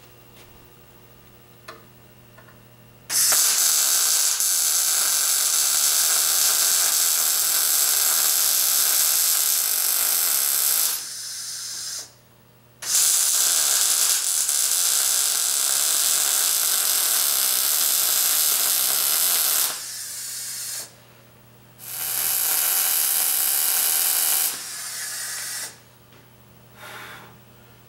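Wire-feed (MIG) welding arc running on a steel rod in three long welds of about eight, seven and three seconds. Each weld drops to a quieter level for about a second before it stops, and a low steady hum is heard between welds.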